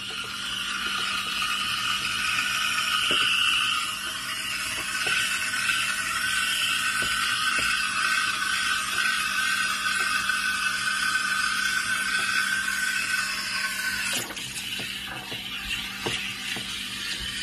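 Steam wand of a De'Longhi Caffè Parma espresso machine hissing steadily in a stainless steel pitcher as it heats and froths milk; the hiss weakens about fourteen seconds in.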